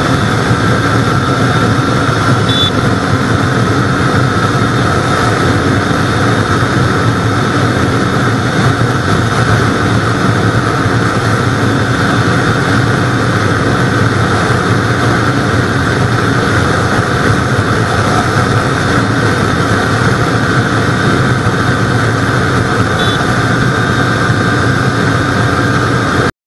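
Kawasaki Ninja 400's parallel-twin engine held at full throttle near top speed, its pitch slowly rising as the bike pulls toward about 196 km/h, mixed with steady wind rush. The sound cuts off suddenly near the end.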